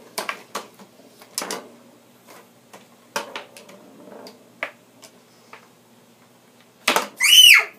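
Mini tabletop foosball game in play: scattered sharp plastic clacks and knocks as the ball strikes the players and table walls and the rods are worked, roughly one every second or so. Near the end, a loud, high-pitched child's shriek that rises and falls.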